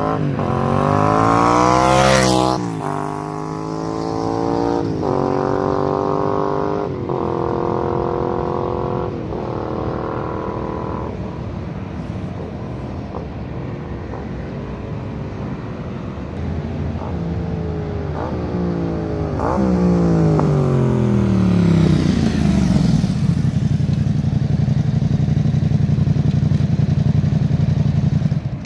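2017 Yamaha MT-07's 689 cc parallel-twin through a Zard full exhaust system with the dB killer fitted: the bike accelerates past about two seconds in, then upshifts through several gears as it pulls away and fades. It comes back with falling revs and idles close by near the end.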